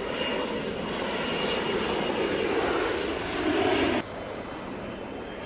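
Fairchild Republic A-10 Thunderbolt II's twin TF34 turbofans as the jet flies low past and overhead: a steady jet roar with a thin high whine, growing louder. About four seconds in it drops abruptly to a softer rush.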